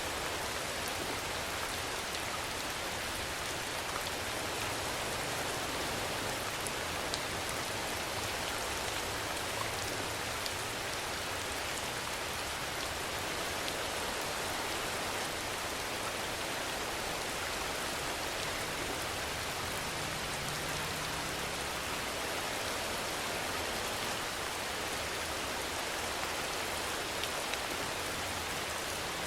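Steady rain falling, a dense, even hiss of drops with now and then a single sharper drop.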